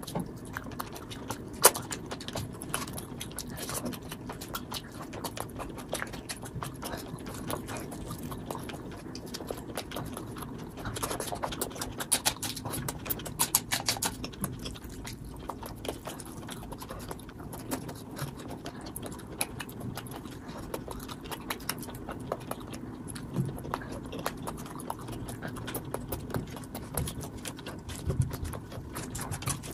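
Close-miked eating sounds: wet chewing and lip smacking, mixed with fingers squishing rice and chicken curry gravy on a plate. A sharp click about two seconds in.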